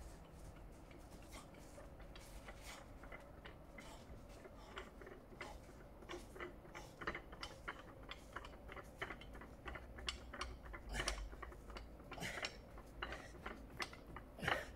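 Faint irregular clicks and knocks, a few a second, from a strongman duck walk: a 145 kg implement carried between the legs, its metal handle clinking, with shuffling footsteps on the dirt path. They grow louder toward the end.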